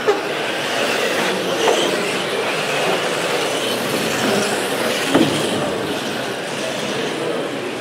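A pack of radio-controlled mini racing cars running on an indoor carpet track: a steady whir of motors and tyres, with sharp knocks about two and five seconds in.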